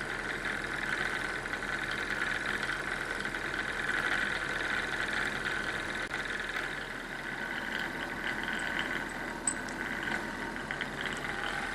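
Homemade free-piston Stirling engine running steadily, its piston driving a linear generator with a fast, even buzzing rattle. One sharp click near the end.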